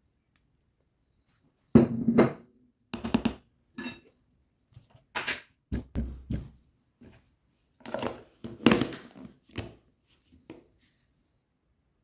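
Rigid plastic food tub handled by gloved hands. It is set down on a cloth with a sharp knock about two seconds in. A string of plastic knocks and clacks follows as its lid is put on and pressed down, with a cluster of them about eight to nine seconds in.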